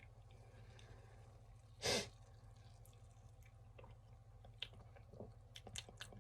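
A person taking a drink from a can: quiet sips and swallows, a short breathy exhale about two seconds in, and a few soft clicks near the end.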